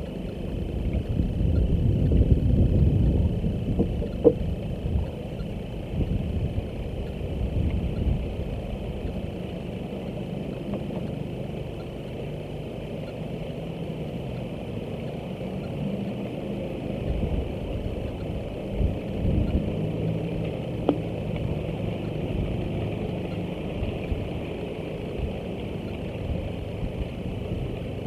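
An engine running with a low, steady rumble, louder in the first few seconds, with a couple of faint clicks.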